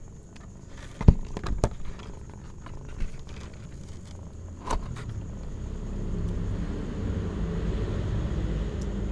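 Close knocks and scuffs as kittens and a hand bump against the camera, the sharpest about a second in, then a steady low rumble that builds from about halfway.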